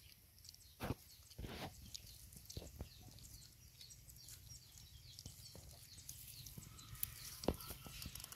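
Puppies eating together from a metal bowl: faint lapping, chewing and small knocks, scattered and irregular. Small birds chirp faintly in the background.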